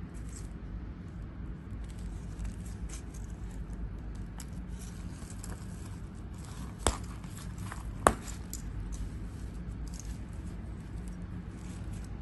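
Handling noise of a leather long wallet: light scraping and small clicks as it is turned and opened, with two sharp clicks from its metal hardware about 7 and 8 seconds in, over a steady low hum.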